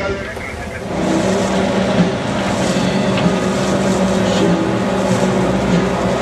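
Boat engine running steadily with a low hum over a rushing noise, growing louder about a second in.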